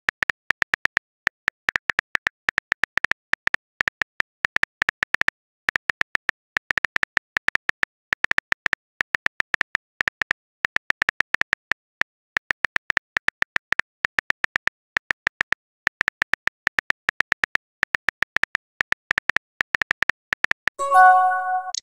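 Texting-app keyboard tap clicks, one quick tick per letter, in a fast uneven patter with short pauses as a long message is typed out. Near the end, a short multi-note chime as the message sends.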